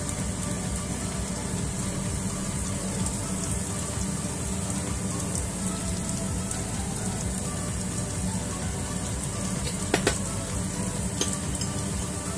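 Minced garlic frying in oil in a pan, a steady sizzle, as black bean paste is squeezed in. Two or three sharp clicks come near the end.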